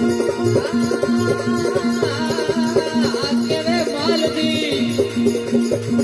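Rajasthani folk bhajan music: a mostly instrumental passage with a wavering melody over a steady drum beat and rattling percussion.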